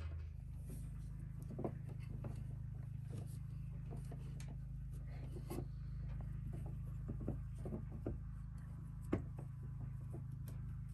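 Soft, scattered clicks and rubbing from hands tying handspun dog-hair warp yarn onto the wooden rod of a rigid heddle loom, over a steady low hum. One sharper click comes about nine seconds in.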